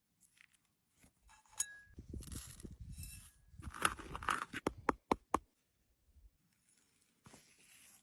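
Crunching and scraping handling sounds, then four quick, sharp knocks about five seconds in.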